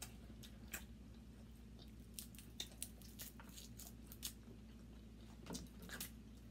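Crab legs being cracked and picked apart by hand: scattered, irregular soft clicks and crackles of shell, with wet chewing and smacking of mouths close to the microphone.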